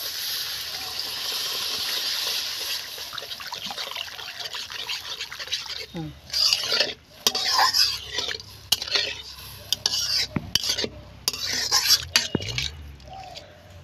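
Spiced masala sizzling with a steady hiss in a hot metal wok for the first few seconds. After water goes in, a metal spatula stirs and scrapes the thin gravy round the wok with irregular scrapes and sharp clinks against the metal.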